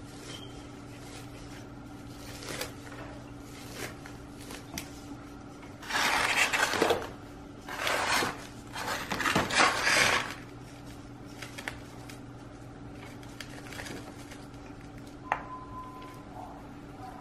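Chunky bark potting mix scraping and rustling in a terracotta pot as hands press it in around an orchid's roots, in three loud bursts about six to ten seconds in, with a few light clicks around them.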